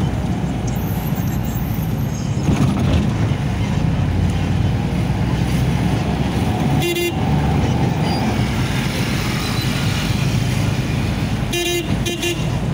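Steady engine and road noise heard from inside a moving vehicle's cabin in traffic. A vehicle horn toots once about halfway through and twice in quick succession near the end.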